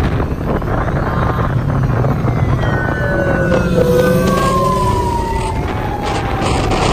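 Heavy wind rush on the microphone of a fast-moving motorbike. From about two and a half seconds in, a siren-like tone slides slowly down in pitch and is still sounding at the end.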